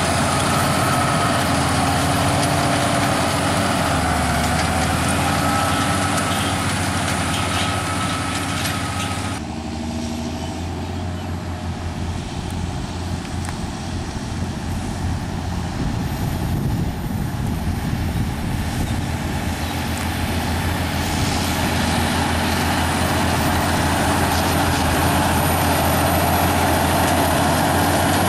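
Claas Axion tractor engines with straight-pipe exhausts running steadily under load, pulling seed drills. About nine seconds in the sound changes abruptly and drops a little, then grows louder again as a tractor nears.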